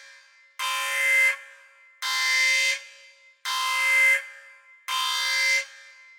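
Sci-fi spaceship alarm sound effect: a harsh, buzzing klaxon tone that blares in four short blasts, about one every second and a half. Each blast starts abruptly and trails off in an echo.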